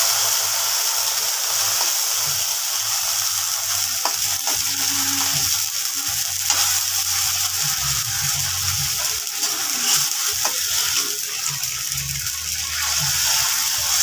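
Sardines with onion and garlic sizzling in hot oil in a kawali (wok), with a spatula stirring and clicking against the pan now and then.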